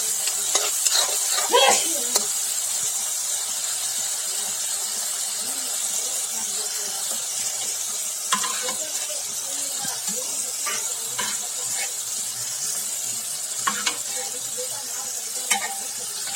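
Food sizzling steadily in a hot pan while a spoon stirs it, with sharp clicks of the spoon against the pan, several in the first couple of seconds and a few more near the end.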